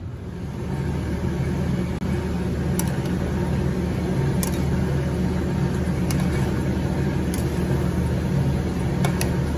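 Saucepan of water at a rolling boil on a gas burner, giving a steady bubbling rumble, with metal tongs clicking against the pot a few times as linguine is stirred.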